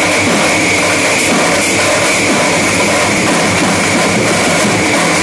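A pad band of many slung side drums and bass drums, played together with sticks in a loud, dense, continuous beat. A steady high-pitched ringing tone runs through the drumming.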